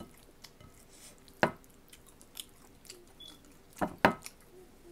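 Close-up eating sounds: quiet chewing with sharp mouth smacks, one about a second and a half in and two close together near the end.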